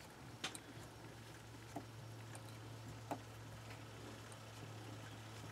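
Myford ML7 lathe running: a faint steady hum with a few scattered faint ticks as a tool in the tailstock chuck cuts into the steel part in the spinning four-jaw chuck.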